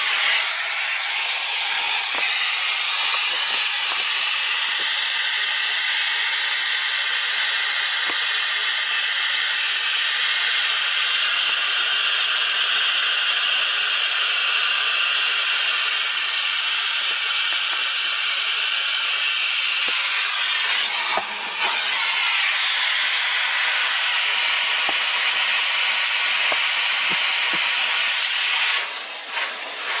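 Numatic Henry cylinder vacuum cleaner running steadily, its airflow giving a loud, even hiss, with a brief dip about two-thirds of the way through.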